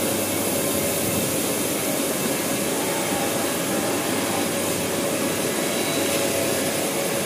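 Steady, even whir of CNC machining centres running in a machine shop, with a faint constant tone.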